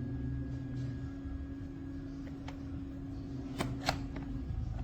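Two short clicks of an SDS Plus bit and a DEWALT 20V MAX SDS rotary hammer being handled, about three and a half seconds in, over a steady low hum.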